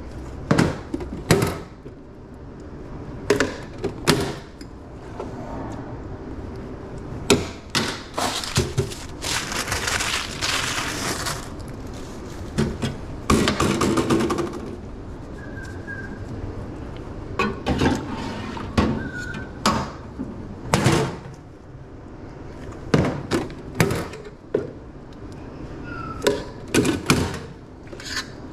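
Repeated sharp knocks and clatter of metal tongs, a serving spoon and stainless-steel lids at a hot dog steam table, with two longer hissing rushes about ten and thirteen seconds in.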